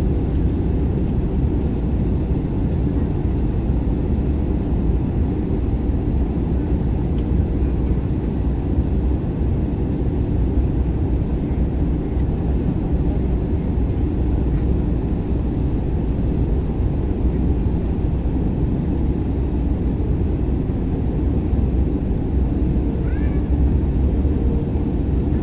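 Steady low rumble of a passenger jet's engines and rushing air, heard inside the cabin.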